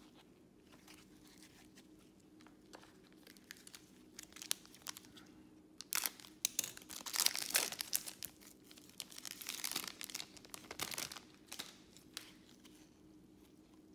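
Foil wrapper of a Panini Select baseball card pack being torn open and crinkled. It runs loud and crackling from about six seconds in for some five seconds. Before that there are only faint clicks of cards being handled.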